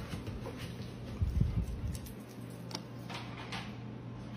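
A few light clicks of a golden retriever's nails on a hardwood floor as it walks, with a dull low thump a little over a second in.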